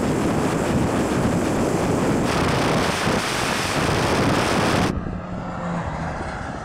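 Cars passing at speed down a runway, a Peugeot 205 GTI and then a turbocharged Suzuki Jimny, heard through a loud rush of wind on the microphone. The rush drops off sharply about five seconds in, leaving a quieter hum.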